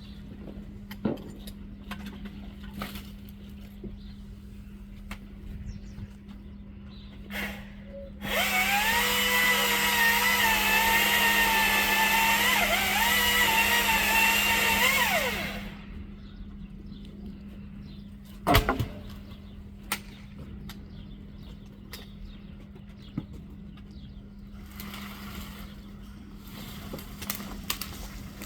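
ECHO DCS-2500T battery top-handle chainsaw running for about seven seconds, a loud, steady electric whine that dips briefly under load and then spins down. A single sharp thump follows a few seconds later.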